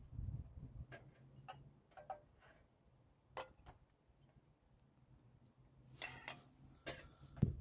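Faint, scattered clicks and light clinks of a small glass and a metal mixing bowl being handled, a few sharp ticks spread unevenly, with a small cluster about six seconds in.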